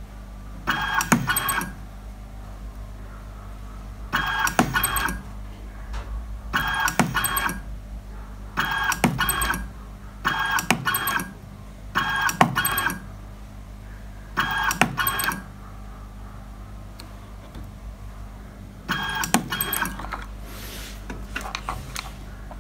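Homemade transformer spot welder for battery cells firing repeatedly, welding a nickel strip onto a cylindrical cell: eight short buzzing bursts, each starting with a sharp snap, a second or few apart. A steady low mains hum from the welder's transformer runs underneath.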